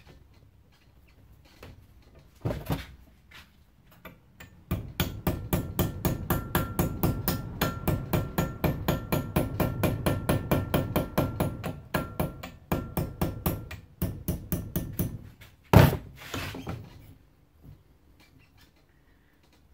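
Hammer tapping the edge of a thin sheet-steel strip clamped in a vise, folding a lip over it: a rapid run of light taps, about four or five a second, with a faint metallic ring. A single blow comes before the run, and one harder, louder blow follows it.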